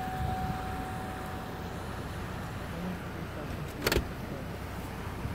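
Floodwater rushing steadily across a road crossing, a continuous noisy wash. A faint steady tone sounds for the first second or so, and a single sharp knock comes about four seconds in.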